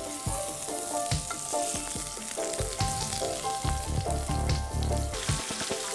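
Meat köfte frying in hot sunflower oil in a pan, a steady sizzle.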